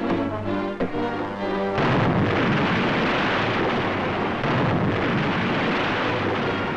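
Orchestral newsreel music, cut off about two seconds in by a loud, even rush of splashing water that lasts about five seconds: the splash of an invasion barge launched sideways from a ship's deck into the sea.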